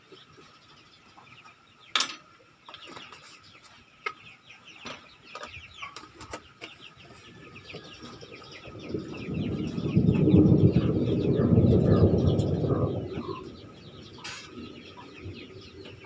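Chicks cheeping, many short high calls. There is a sharp click about two seconds in, and a louder low scraping noise from about nine to thirteen seconds in, as a plastic waterer base is fitted onto its jar.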